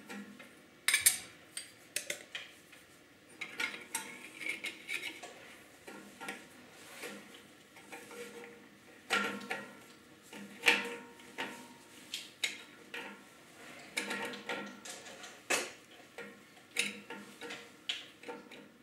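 Copper refrigeration pipe fittings being handled and pushed together by hand: scattered light metallic clinks and taps with handling noise between them.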